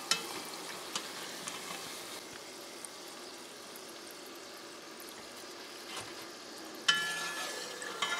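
Pholouri (split-pea flour fritters) deep-frying in hot oil with a steady sizzle. A metal slotted spoon clinks against the pot a few times with a short ring, loudest about seven seconds in.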